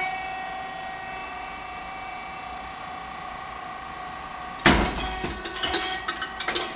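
SYP9002 puffed rice cake machine running, with the steady whine of its motor and hydraulic pump. About two-thirds of the way through comes a loud, sudden pop as the hot titanium-coated moulds open and the rice cakes puff. Several mechanical clicks follow.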